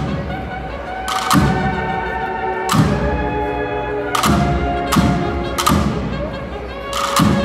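Cornet and drum band playing a Holy Week processional march. The cornets hold sustained chords over slow, heavy drum strokes about a second and a half apart.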